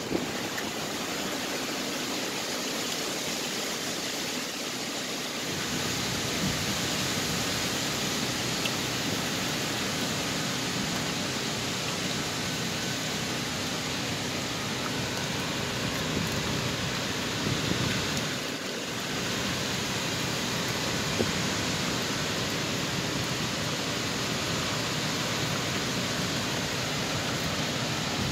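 Hurricane winds blowing through tall trees: a steady rushing noise that swells a little about six seconds in and dips briefly around eighteen seconds.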